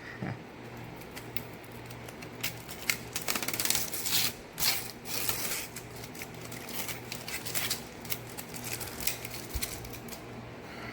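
Protective plastic film being peeled off a new graphics card, with irregular crackling and rustling that is busiest in the middle.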